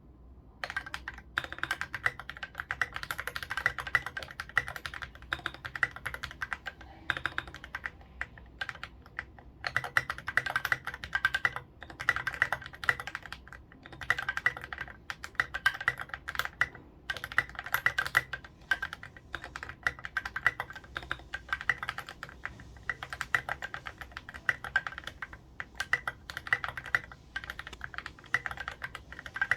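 Typing on a mechanical keyboard with lubed Feker Holy Panda tactile switches in an aluminium plate and case, under SA profile keycaps: fast runs of keystrokes with short pauses between bursts. The keystrokes are deep, rounded clacks.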